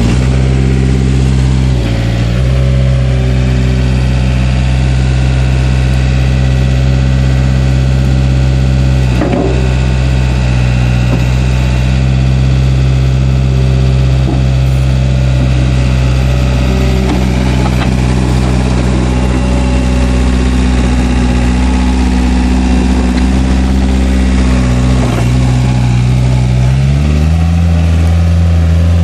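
Diesel engine of a 2008 Takeuchi TL130 tracked skid steer running steadily. Its note dips briefly about two seconds in, sags for a few seconds later on, and rises to a higher speed near the end.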